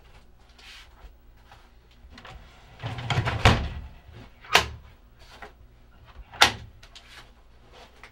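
An old wooden trunk being handled and shut. A board is slid out with rustling and a dull thud of the lid closing about three and a half seconds in, then two sharp knocks about two seconds apart.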